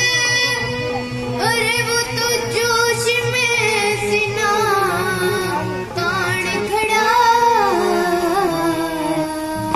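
A 13-year-old boy singing solo through a PA microphone, his melody bending and ornamented, over instrumental accompaniment holding long low notes that change in steps.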